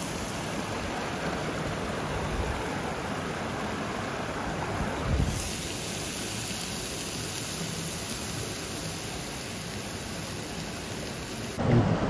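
Steak frying in a pan, a steady hiss, with a rushing river close by blending into the same noise. A soft low bump a little after five seconds.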